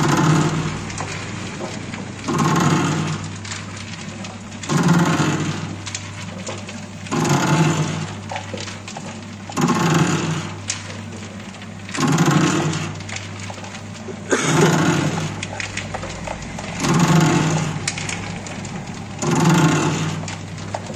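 Soap-noodle mixer running: a steady motor hum, with the turning arm churning through the soap mass in a loud, noisy surge about every two and a half seconds, one per pass of the blade.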